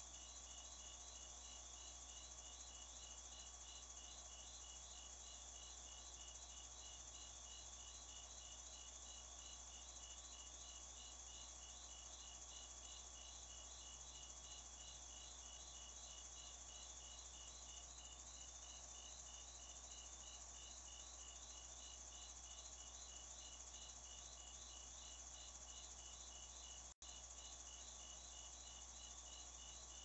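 Faint crickets chirping in a steady, even rhythm, two chirpers at slightly different pitches, over a steady hiss. The sound cuts out for an instant near the end.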